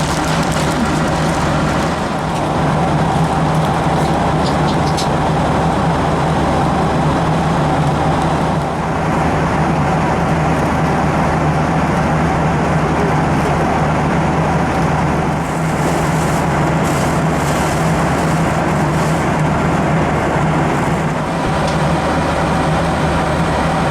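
Steady engine and airflow drone inside the cabin of a Boeing 737-700 airliner, with a constant low hum and a few faint brief rattles or clicks on top.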